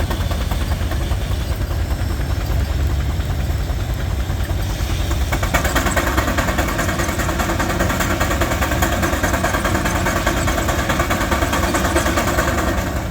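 Frick steam traction engine running a belt-driven sawmill, with a steady low rumble. About five seconds in, a louder, higher-pitched rasping noise comes in and holds until near the end, as the sawmill's circular saw cuts through a log.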